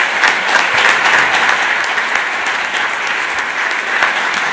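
Audience applauding in a lecture hall: many hands clapping in a dense, steady round.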